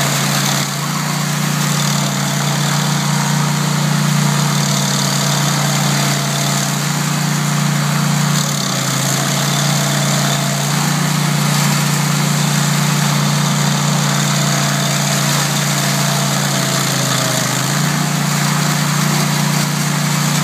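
Toro STX26 stump grinder's engine running steadily at working speed, with a constant hiss over a deep hum. The pitch dips briefly about a third of the way in and again near the end, then recovers.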